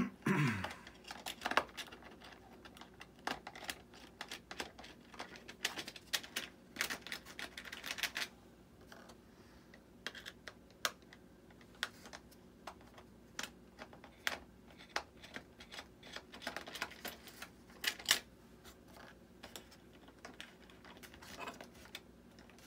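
Small parts of a model jet's retractable landing-gear unit being handled and fitted by hand: irregular light clicks, taps and short scrapes, coming in quick clusters with brief pauses.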